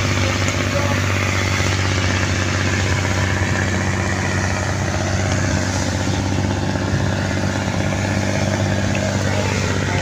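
A wooden purse-seine fishing boat's inboard engine running steadily at cruising speed, with wind and water rushing past the hull.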